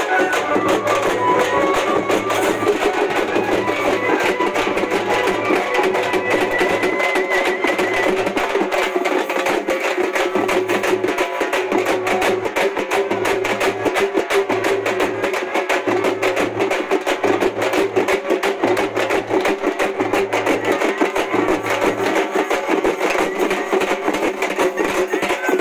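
Music with a fast, dense percussion beat and a low bass note pulsing about once a second. A high melody line runs through roughly the first eight seconds.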